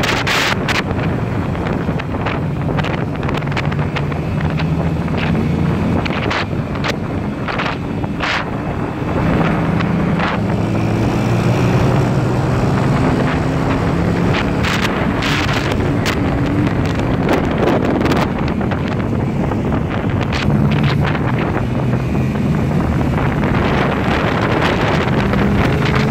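Wind buffeting the microphone at riding speed, with many short gusts, over a steady engine hum that shifts in pitch now and then.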